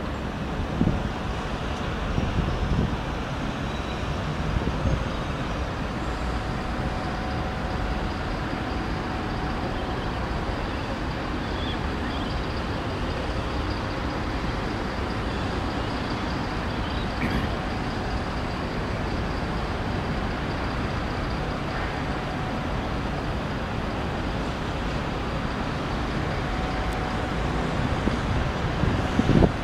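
Steady hum of city traffic heard from high above the streets, the engines and tyres blended into one even wash of noise.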